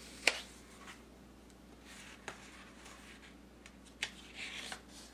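Pages of a paper book being handled and turned: a sharp tap near the start, a few light clicks, and a brief paper rustle a little after four seconds in.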